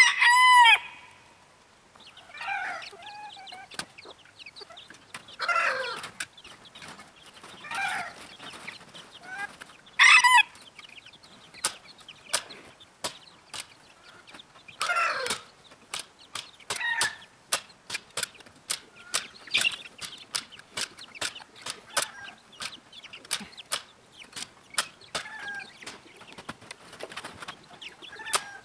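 Young silkie chickens calling and clucking, with a loud squawk at the start and another about ten seconds in. After that a hand staple gun starts snapping staples into the wooden frame, sharp clicks about two a second, while the birds keep calling.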